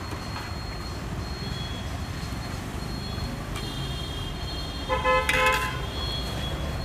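Steady street traffic noise, with a vehicle horn honking briefly about five seconds in.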